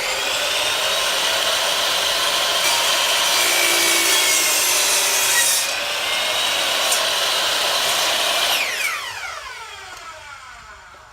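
Electric power saw cutting through a wooden board, running steadily for about eight seconds. It is then released, and its motor winds down with a falling whine that fades near the end.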